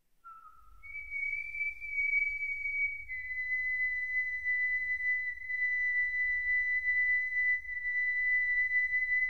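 A high, pure whistle-like tone in the outro music: a short lower note, then a higher note that steps down slightly and holds steady for several seconds, over a soft low rumble.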